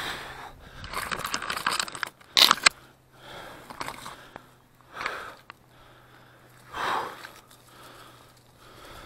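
Someone climbing a birch tree: hands and clothing scrape and rub against the bark, with twigs and leaves rustling and crackling in irregular bursts. The loudest is a sharp crackle about two and a half seconds in.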